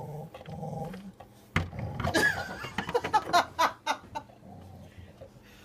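People laughing in short, breathy bursts, set off by a sharp knock about a second and a half in.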